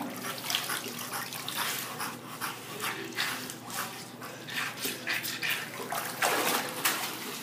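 Water splashing and sloshing in a dog hydrotherapy pool as a dog paddles, in short irregular splashes throughout, with the dog panting.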